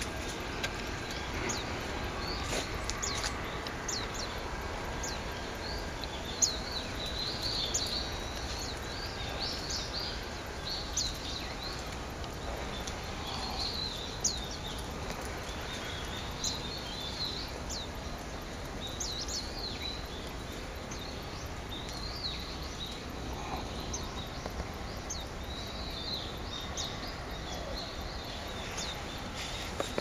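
A mixed flock of small songbirds calling in the undergrowth: many short, thin, high chirps and call notes, often overlapping, scattered through the whole stretch over a steady low background noise.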